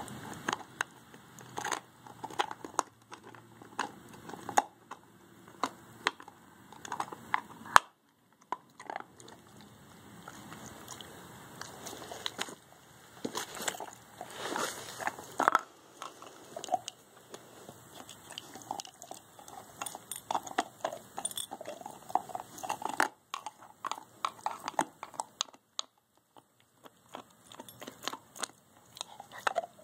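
A dog chewing and gnawing a bone: irregular crunching and sharp clicks of teeth on the chew, with a couple of short pauses.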